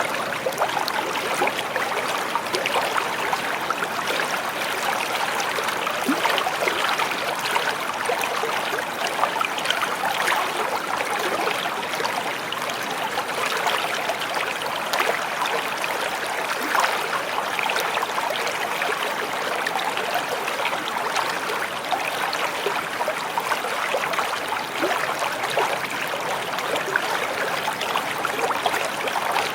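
Stream water flowing steadily, a continuous rushing with many small splashes and trickles throughout.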